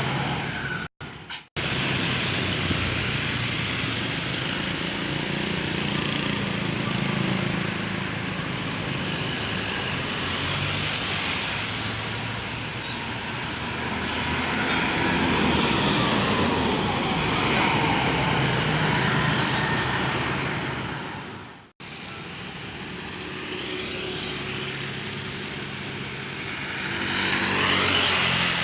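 Large diesel intercity bus engines running as the buses pull away, with road traffic noise around them; the sound cuts out briefly about a second in and again about three quarters of the way through. Near the end an engine revs up, rising in pitch and getting louder.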